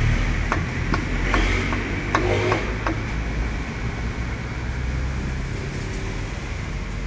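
A cleaver chopping poached chicken on a thick round wooden chopping block: about half a dozen sharp knocks in the first three seconds, then the chopping stops. A steady low rumble runs underneath.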